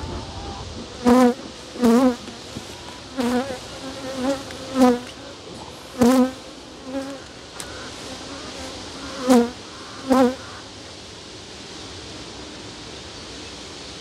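Honeybees buzzing close past the microphone in about eight brief, loud passes over the first ten seconds, each buzz bending in pitch. The bees are upset, agitated with their hive open.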